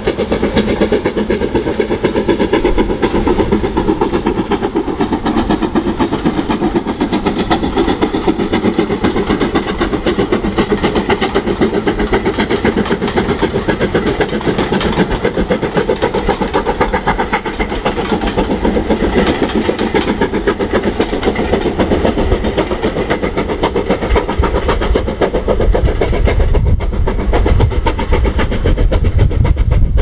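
Caprotti valve-gear BR Standard Class 5 4-6-0 steam locomotive working hard with a train of coaches: a loud, crisp, rapid exhaust beat, with the rattle of the coaches behind. The beat thins near the end as the train draws away, and a low rumble rises.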